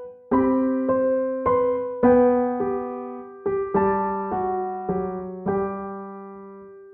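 Background music: a slow electric piano melody, single notes and chords struck about twice a second, the last one ringing out and fading near the end.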